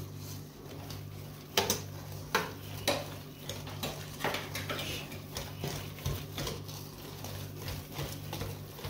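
Wire whisk scraping and clinking against a stainless steel mixing bowl as it beats a thick batter, in irregular strokes. A steady low hum runs underneath.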